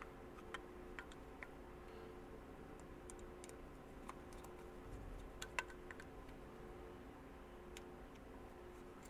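Faint, scattered light clicks of a screwdriver and screws as the float-bowl screws of an S&S Super B carburetor are run down by hand until they lightly seat, over a low steady hum.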